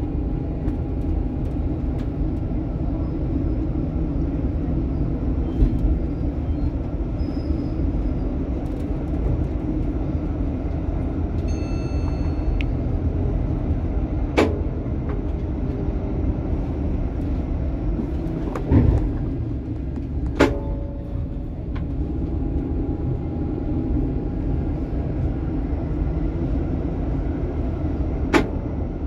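Helsinki tram running along its track, a steady rumble with a faint motor hum. Sharp clicks and knocks come now and then, the strongest a little after halfway, and a brief high-pitched tone sounds about twelve seconds in.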